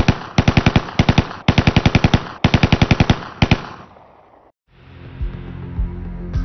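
Bursts of automatic gunfire, about nine shots a second, in repeated bursts of roughly a second each. They trail off about four seconds in, followed by a low steady hum.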